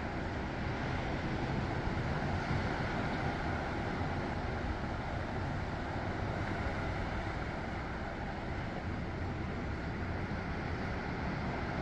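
Steady rushing noise of surf below, with a low rumble of wind on the microphone and no single wave standing out.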